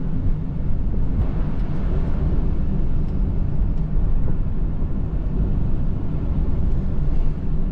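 Dodge Challenger Scat Pack's 6.4-litre HEMI V8 and tyres as the car cruises at steady speed, a constant low engine and road drone with no revving.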